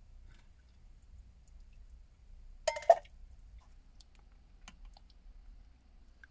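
Faint clicks and light scrapes of a silicone spatula serving stew from a slow cooker's crock into a small steel pot, with a sharper double clink about three seconds in.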